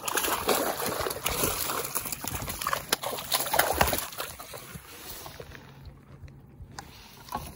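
Close handling noise as a small fish is unhooked by hand: rustling with scattered clicks and knocks, louder for about the first four seconds and then fading.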